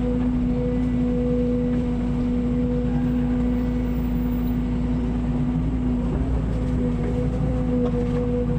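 An engine running steadily at constant speed, a droning hum that neither revs up nor drops.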